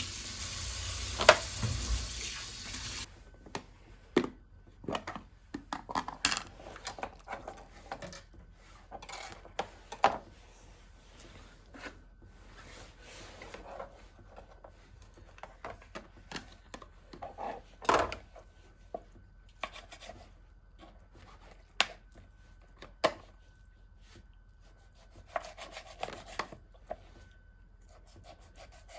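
Household items being handled, with scattered knocks, clicks and rustles, after a steady hiss for about the first three seconds.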